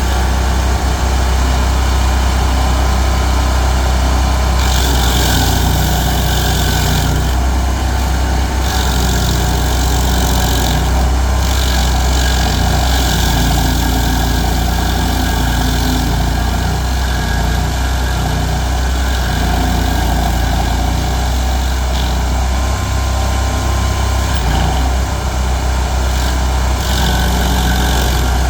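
Stump grinder's engine running steadily, with several brief stretches of added hiss.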